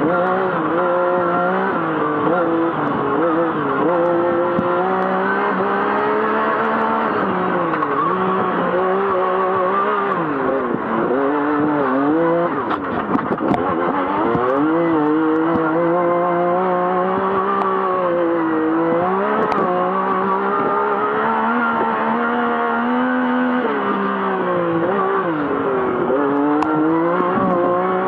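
Yamaha YXZ1000R's three-cylinder engine running hard, heard from inside the cab, its pitch repeatedly dipping and climbing again as the revs fall and rise. About halfway through the revs drop deeply and there are a few sharp knocks before the engine pulls back up.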